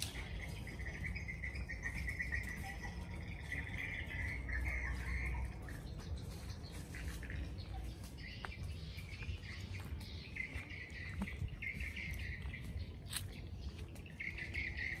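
An insect chirring in buzzing trills at one high, even pitch: about five seconds at the start, again for a couple of seconds past the middle and briefly at the end. Under it a steady low rumble and a few sharp clicks.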